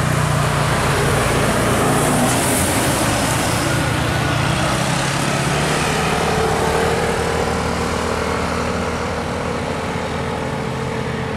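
Tour coach's diesel engine and tyres passing close on the road, loudest early on and fading as it moves away. A car and a motorcycle follow close behind, and a steady higher engine tone joins about six seconds in.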